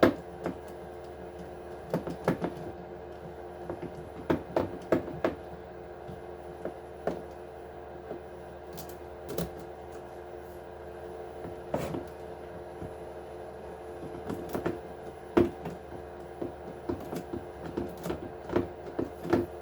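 Scattered light clicks and taps of hand tools, small bolts and plastic parts being handled while an Axial SMT10 RC truck's 4-link suspension is unbolted by hand, over a steady background hum.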